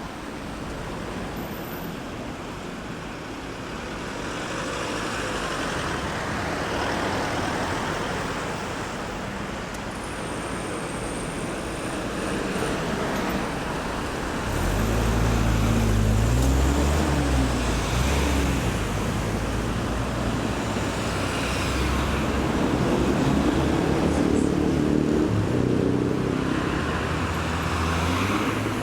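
Steady road traffic at a roundabout, cars passing with tyre hiss; about halfway through a heavy vehicle such as a bus or truck passes with a low engine rumble that shifts in pitch, and the traffic grows louder.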